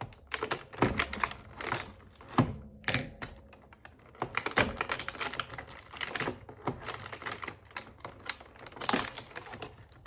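Irregular clicks, taps and light crinkles of hands prising open a cardboard advent calendar door and handling the small wrapped toy inside.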